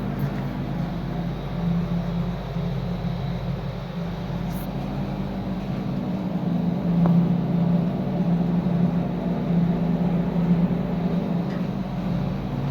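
Diamond DSC-20 20 HP rotary screw air compressor running, a steady low hum that swells and eases slightly every few seconds.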